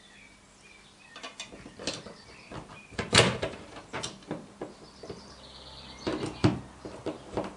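Hand screwdriver turning screws in a plastic smoke-detector mounting plate on a ceiling, with fingers handling the screws and plate: irregular clicks, scrapes and knocks, the loudest about three seconds in.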